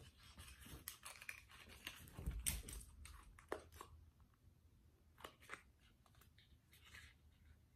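Faint handling of a small cardboard eyeshadow box and compact being worked open: scattered light clicks, scrapes and rustles, with a soft low thump about two and a half seconds in.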